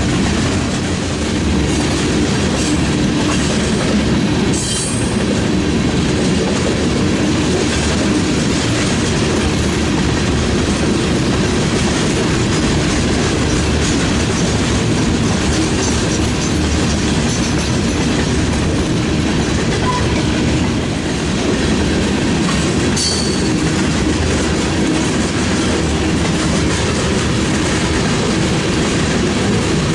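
Freight train of covered hopper cars rolling past close by: a steady heavy rumble with the wheels clicking over the rail joints, and two brief high-pitched wheel squeals, about five seconds in and again about twenty-three seconds in.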